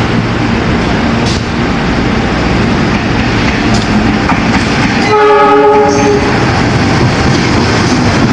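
CC 203 diesel-electric locomotive running light past the platform, its engine and wheels on the rails making a loud, steady din. It sounds its horn once, a chord of several tones lasting about a second, about five seconds in.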